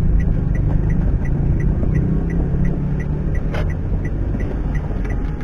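Engine and road rumble of a car driving, heard from inside the cabin, with a short sharp knock about three and a half seconds in.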